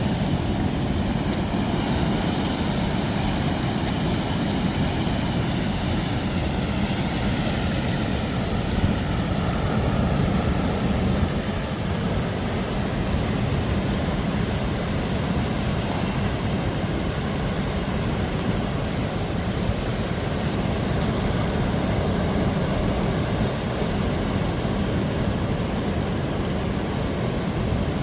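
Steady outdoor ambience of ocean surf, wind and rain on the microphone, heard as a continuous rushing noise. Over roughly the first ten seconds a faint wavering drone sits on top of it.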